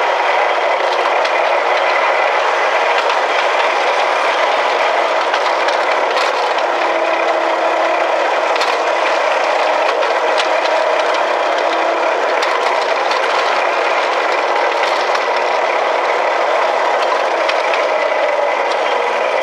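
Miniature ride-on railway train rolling along garden track: steady rattling and clattering of the wagon wheels on the rails.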